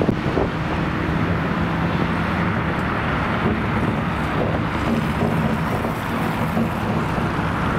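Steady street traffic noise with a tram approaching on the rails, and wind buffeting the microphone. A faint low hum runs under the din.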